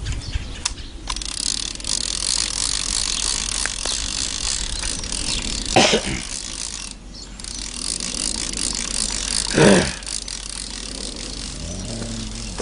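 Baitcasting fishing reel being cranked to wind the line back in, its gears running with a steady fine clicking and a short pause about halfway through. Two brief louder whooshes falling in pitch stand out, about four seconds apart.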